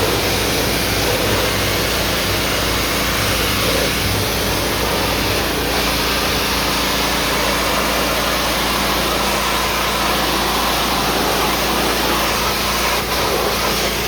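Kohler gas engine of a hot water pressure washer running steadily at a loud, even level, with a constant rushing hiss over the engine note. The lowest part of the engine sound eases slightly about five seconds in.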